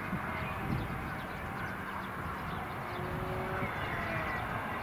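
Steady engine rumble from a tractor mowing the grass close by, mixed with the distant running of a CRJ-900's jet engines, and faint high chirps over the top.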